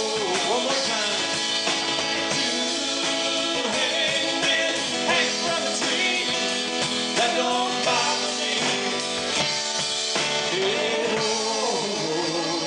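Live rock band playing: acoustic guitar, electric guitar, bass and drums, with a voice singing over them.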